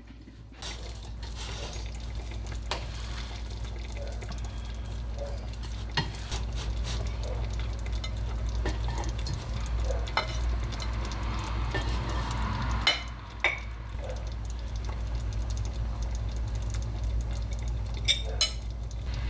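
Kitchen serving sounds over a steady low hum: a rice paddle scooping cooked rice from a pot into a bowl and chopsticks placing broccoli, with scattered sharp clicks of utensils against pots and bowls.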